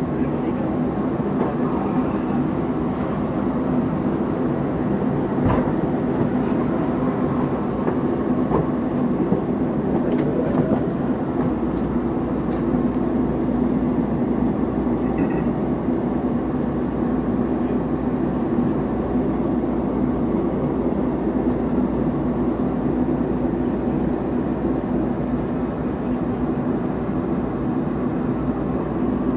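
Shinkansen train running, a steady rumble with a constant low hum; the deep rumble grows stronger about eleven seconds in.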